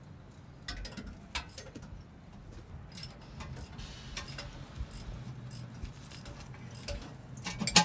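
Metal hand tools clicking and clinking on metal, a wrench and ratchet at work on the bolts of a brake dust cover, in sharp irregular ticks over a low steady hum, with a louder clatter near the end.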